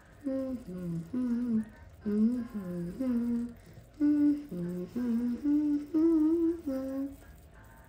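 A woman humming a wordless tune in short phrases of held notes, with brief pauses between phrases.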